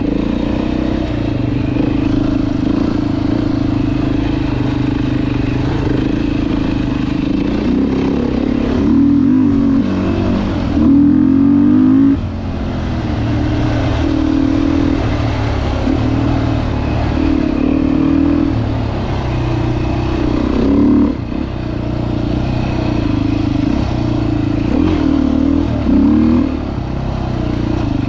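Dirt bike engine running under load while riding, its revs rising and falling several times as the throttle is opened and closed, with brief louder surges about eleven seconds in and again near the end.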